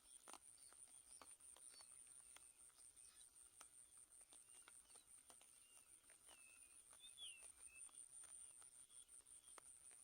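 Faint outdoor ambience: a high, steady pulsing insect trill with scattered light clicks, and a few faint short bird chirps about six to seven seconds in.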